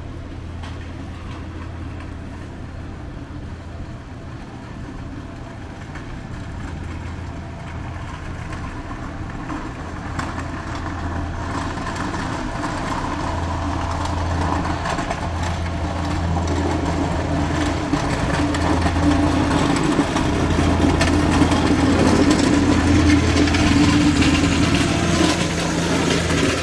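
City street traffic: a motor vehicle's engine running with a steady low hum, while the traffic noise gradually grows louder.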